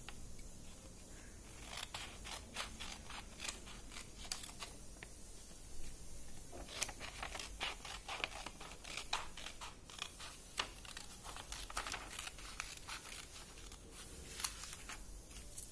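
Scissors cutting through a sheet of paper: runs of short, crisp snips in clusters, with brief pauses between them.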